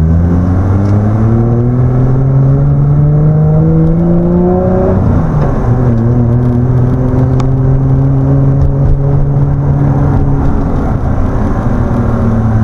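Boosted 2JZ inline-six in a Lexus SC300 pulling away under acceleration. The engine's pitch climbs for about five seconds, drops sharply at a gear change, then holds nearly steady in the next gear.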